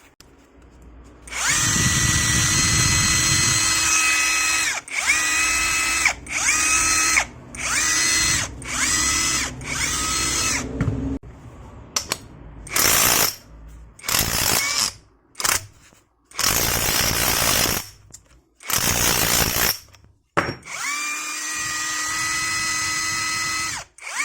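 Cordless electric impact wrench run free in a series of trigger pulls: each pull is a steady motor whine that starts with a short rise in pitch, some runs longer than others. Freshly serviced with new grease, it runs smoothly and sounds very nice.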